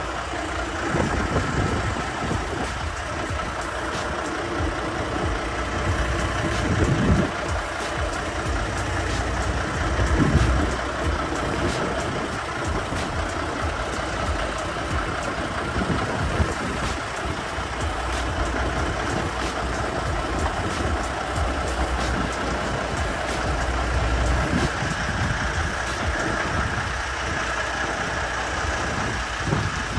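Peterbilt 389 semi truck's diesel engine running steadily at low speed as the truck manoeuvres slowly, a continuous low rumble that swells a little louder twice about a quarter to a third of the way through.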